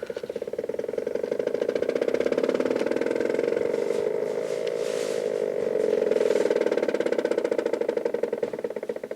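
Stepper motor driving an HO-scale turntable, stepping in a rapid run of ticks that merges into a steady hum. The stepping quickens over the first second, holds steady, then slows again near the end as the turntable ramps down.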